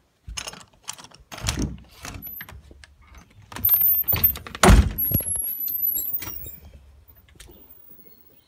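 A clatter of knocks, clicks and rattles, loudest in a thump about five seconds in, with a brief thin high squeal around the middle.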